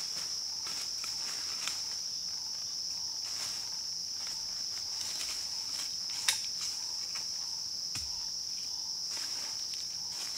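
A steady, high insect drone fills the forest, while footsteps crunch and rustle through dry bamboo leaves and twigs. A sharp snap stands out about six seconds in.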